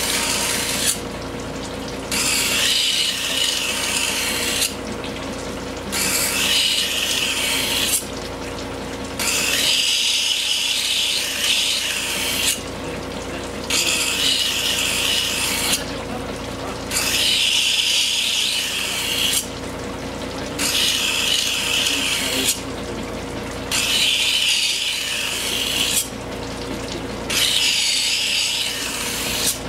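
A steel kitchen knife blade held against a large horizontal rotating grinding wheel, making a gritty hiss in repeated passes of about two and a half seconds, broken by short pauses roughly every three and a half seconds. Beneath it, the grinder's motor hums steadily.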